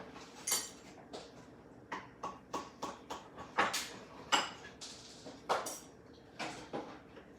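A dozen or so scattered light knocks and clatters at irregular intervals.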